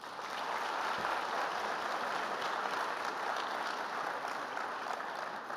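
Audience applauding, building quickly at the start, holding steady, then fading near the end: a welcome for a speaker coming to the podium.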